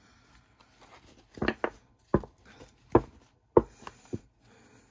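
A deck of thin, plasticky tarot cards being handled and squared by hand: a string of about six sharp taps and knocks, starting about a second in.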